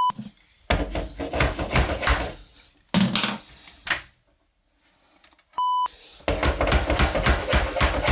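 Two short, flat electronic beeps of one steady pitch, like a censor bleep: one at the start and one about five and a half seconds in. Between them come bursts of clattering, and from about six seconds a dense, rapid run of knocks and clatter.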